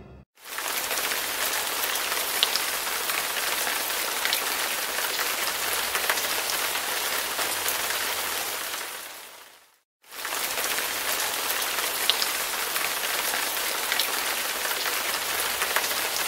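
Rain falling in a steady hiss. It fades out just before ten seconds in and starts again a moment later.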